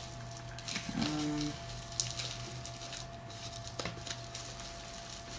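Faint rustling and crinkling of plastic bubble wrap being handled and pulled open around a boxed power supply, with a few sharp clicks. A short low hum about a second in.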